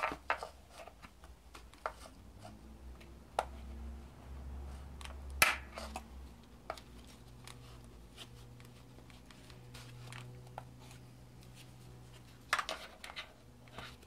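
A screwdriver prying at stiff plastic fuel-injector connector clips on a BMW M52TU engine: scattered sharp clicks and taps of metal on plastic, the loudest about five seconds in and a few more close together near the end. The clips are hard to release because they are old and have never been removed. A low steady hum runs underneath.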